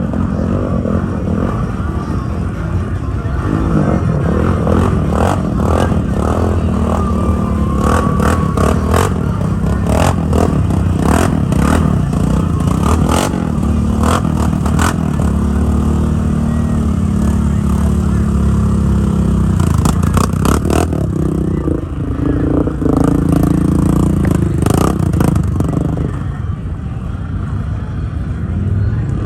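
ATV engine revving hard under heavy load, its pitch rising and falling, with a lot of clattering knocks throughout, most in the first half.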